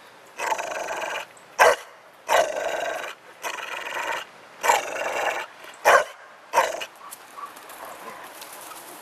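A dog vocalising in a string of drawn-out, grumbling calls of about a second each, broken by three short, louder calls. It is the kind of 'talking' that the dog's owner likens to the sound of a boat motor.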